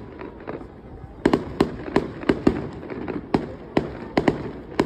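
Fireworks going off: a quieter first second, then a rapid string of sharp bangs, about two or three a second.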